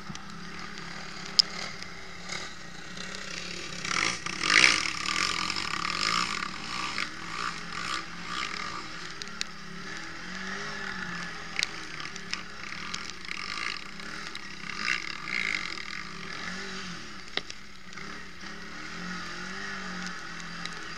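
Quad bike (ATV) engine heard from on board, revving up and down as it races over a rough dirt track, with scattered knocks and rattles from the bumps. A loud noisy surge about four to five seconds in is the loudest moment.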